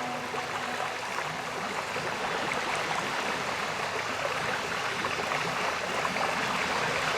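Steady rush of falling and splashing water from a cascading waterfall or stream.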